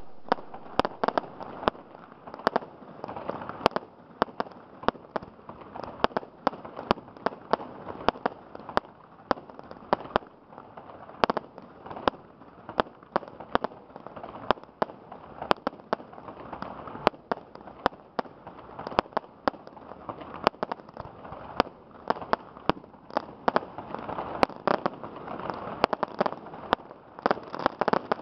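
Fireworks display: aerial shells bursting in a rapid, irregular string of bangs, several a second, over continuous crackling.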